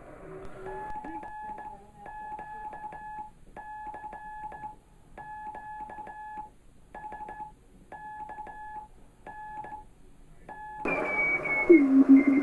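Morse code (CW) tone from a ham radio transceiver, a steady beep of one pitch keyed on and off in groups of dots and dashes, with a small click at each keying. About eleven seconds in the band hiss jumps up and a different, lower-pitched CW signal breaks in, wavering in pitch: an unstable signal, which the operator puts down to vintage or homebrew equipment.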